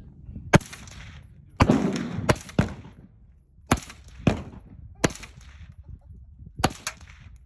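Suppressed AR-style rifle firing single shots, about nine sharp reports at uneven intervals. Some come in quick pairs, and the one at about a second and a half trails off longer.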